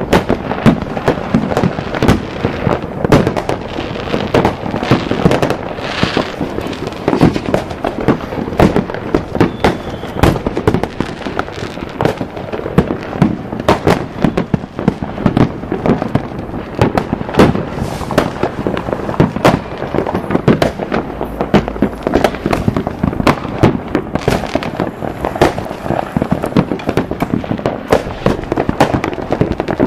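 A dense barrage of fireworks: sharp bangs and pops of bursting shells following one another several times a second, overlapping without a pause.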